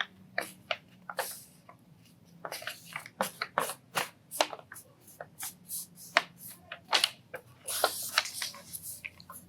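A sheet of paper being folded and creased by hand for an origami crane: irregular crisp crinkles and short rustles, with a longer rustle near the end.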